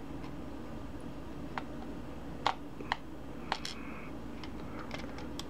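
A handful of light, sharp metal clicks and taps, scattered a second or so apart, from small lock pins being handled and pulled from a disassembled lock's chambers, over a steady low background hum.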